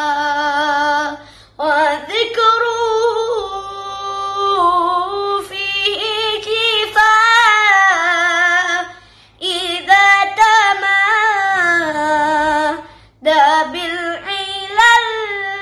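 A boy singing an Arabic sholawat solo, in long ornamented phrases with wavering held notes and brief breaks for breath between them.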